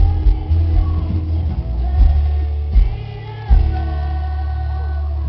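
Live rock band playing, heard from the audience and heavy in the bass: electric guitar and bass with a woman's voice singing held notes.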